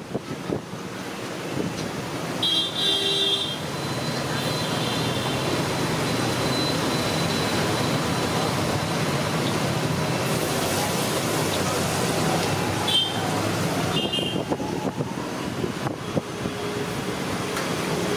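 Road traffic running steadily, with a vehicle horn honking about two and a half seconds in and two short toots later on. Under it is a steady hiss of vada batter deep-frying in a kadai of hot oil.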